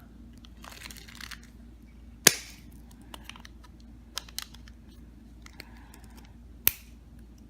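Small hard objects being handled on a work surface: two sharp clicks, about two seconds in and near the end, with a few lighter ticks and faint rustling between.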